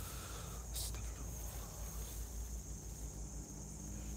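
Night insects chirring steadily in a high, even drone, with a brief noise about a second in and a low rumble underneath.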